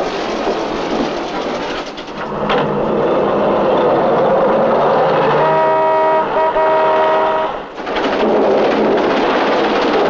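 Car horn sounding for about two seconds, with a short break partway through, over a steady din of street traffic.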